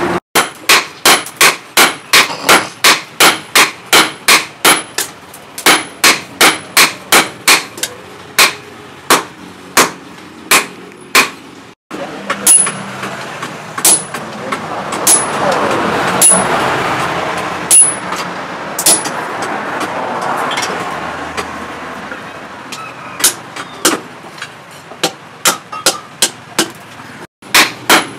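Hand hammer striking a red-hot steel machete blade on a steel post anvil, in quick even runs of about three blows a second. In the middle the blows come slower and ring high, over a noise that swells and fades.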